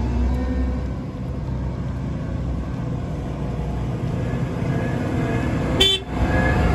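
Claas Tucano 440 combine harvester's diesel engine running as it drives slowly forward, growing louder as it comes close. Near the end comes a brief toot.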